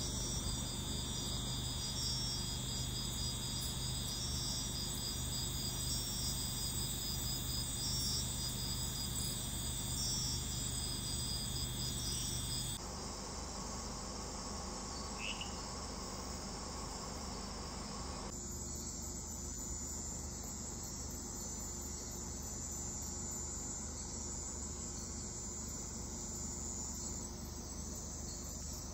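Night-time chorus of crickets and other insects, steady high trilling and pulsing chirps. It changes abruptly twice, about halfway through and again about two-thirds through, with a single short chirp between the changes.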